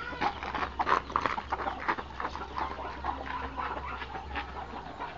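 Chickens clucking in short calls, over irregular crunching footsteps on gravelly dirt.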